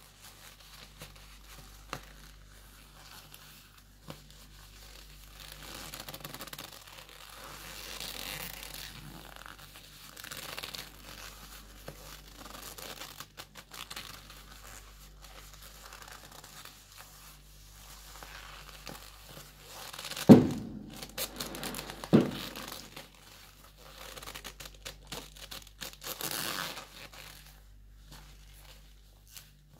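Black leather gloves creaking and rubbing as gloved hands flex and rub together. About two-thirds of the way through come two loud thumps, about two seconds apart.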